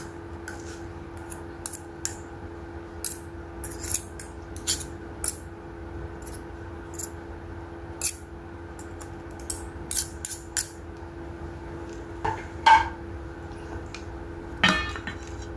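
Metal spoon and fork clinking and scraping against a stainless steel bowl as noodles are stirred and lifted, in short sharp clinks at irregular intervals.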